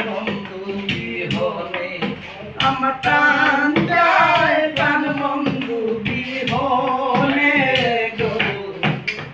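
Male voices singing a Bengali folk song, with hands tapping a rhythm on a wooden tabletop as accompaniment.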